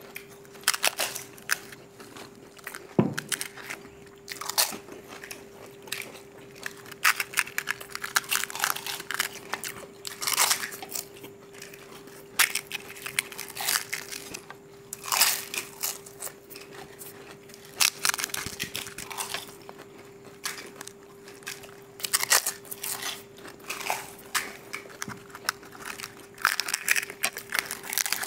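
Crisp, hollow fried puri shells of pani puri crunching as several people bite into them and chew, in quick irregular crunches.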